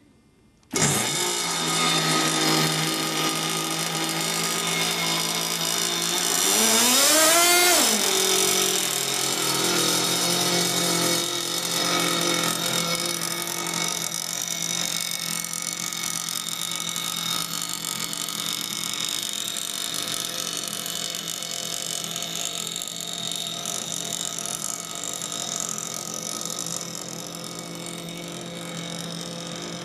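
Small RC model-aircraft engine with a tuned exhaust pipe, spun up by a handheld electric starter and running from about a second in. It revs up and back down once around seven seconds in, then settles to a steady idle that grows slightly fainter toward the end.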